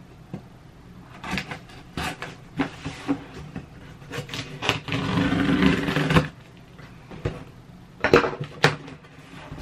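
Hands opening a cardboard shipping box and handling its packaging: scattered taps and knocks, a longer rustle from about four to six seconds in, and a few sharp clicks near the end.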